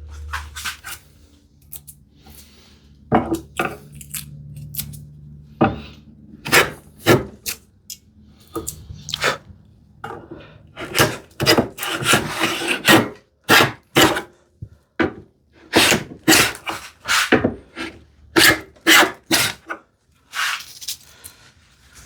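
Stanley 50 combination plane cutting a groove in a wooden strip: a long run of short scraping strokes, some in quick succession, with brief pauses between runs. The plane cuts but resists more than it should, which the woodworker puts down to an adjustment he is missing.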